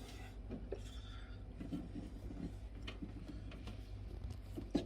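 Faint light clicks and small knocks from handling battery cables and tools, over a steady low hum.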